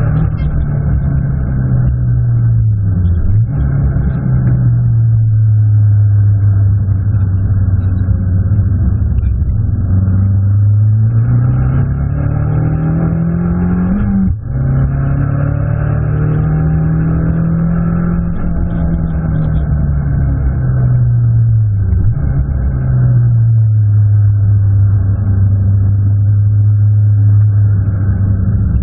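Abarth 500 Assetto Corsa race car's turbocharged 1.4-litre four-cylinder engine, heard from inside the roll-caged cabin. The revs climb and fall again and again. About fourteen seconds in, a long climb ends in a sudden drop in pitch with a brief dip in loudness, as at an upshift.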